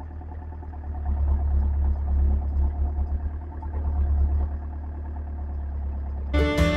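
Backhoe engine idling, a steady low rumble. Fiddle and guitar music comes in near the end.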